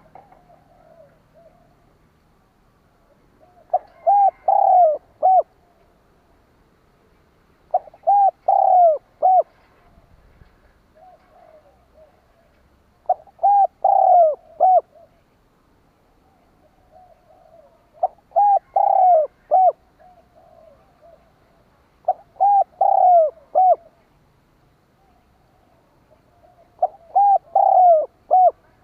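Spotted dove (tekukur) cooing: six phrases of about four coos each, repeated roughly every four to five seconds, with fainter coos between the phrases.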